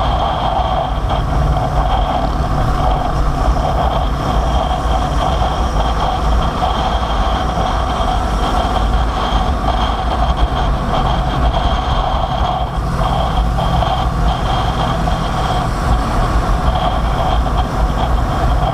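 Motorcycle riding at a steady speed: a steady engine drone over a heavy low rumble, with no let-up.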